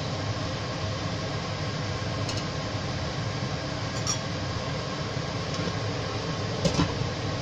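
A few light clinks of a spatula against a stainless steel cooking pan, two quick ones near the end the loudest, over a steady hiss.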